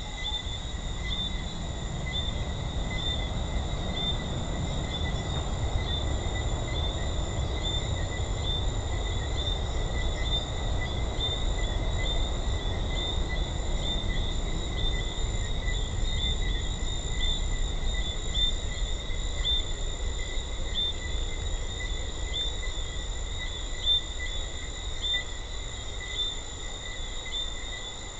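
Chorus of Jamaican treefrogs: short high chirps repeat every second or so over steady high-pitched insect trilling, with a low rumble underneath.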